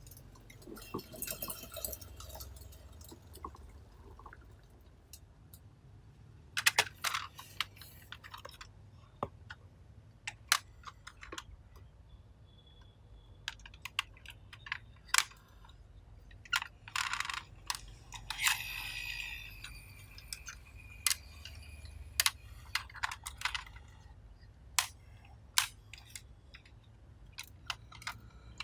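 Small plastic toy vehicles being handled: irregular clicks, taps and short clattering runs as they are picked up, moved and set down, with a few sharper knocks.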